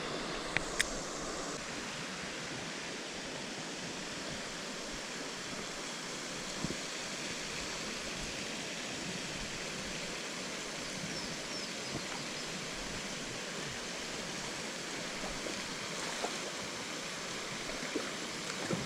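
Steady rushing of river water flowing over rocks, with a couple of small clicks in the first second.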